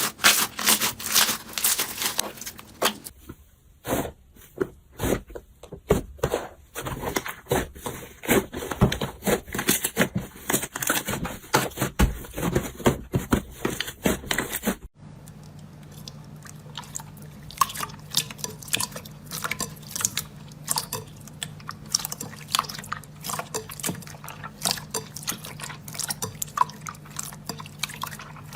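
Slime being squeezed and poked by hand, making dense wet clicks and pops. The sound changes abruptly a few seconds in and again about halfway through, as one slime clip cuts to the next.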